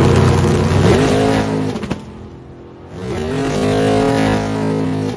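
Race car engine revving hard twice: the pitch rises and holds, cuts off about two seconds in, then rises and holds again before cutting off near the end.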